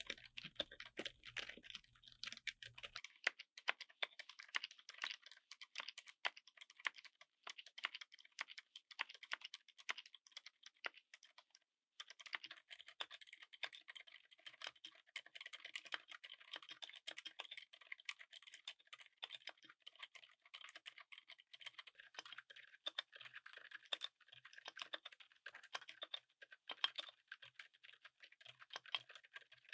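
Continuous fast typing on a mechanical keyboard fitted with silent switches: a dense patter of soft, muted key presses without sharp clicks. About twelve seconds in, it breaks off for a moment, then resumes.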